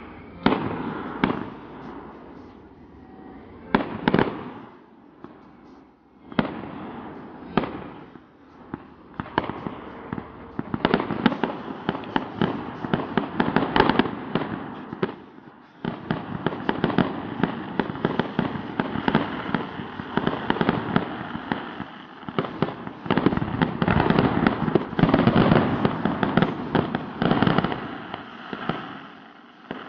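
Fireworks going off: a few separate sharp bangs in the first several seconds, then dense, rapid crackling and popping from about eleven seconds in, easing off near the end.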